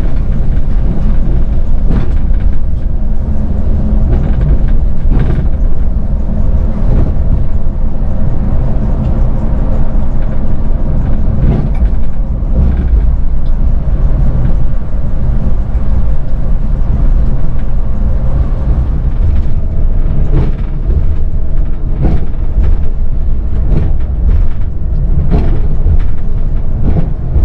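Scania Metrolink coach running at speed, heard from the front of the cab: a steady low engine and road rumble, broken by frequent short knocks from the road surface.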